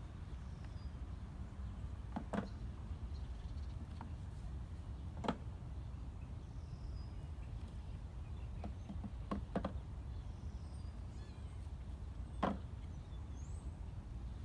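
Scattered sharp clicks and knocks of beehive equipment being handled, the loudest near the end, over a steady low rumble, with faint short high chirps now and then.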